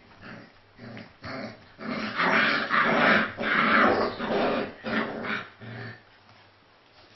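Central Asian Shepherd puppies, four weeks old, growling at each other in play-fighting. It comes in short bursts, then a longer, louder stretch a couple of seconds in, before tailing off in a few short growls.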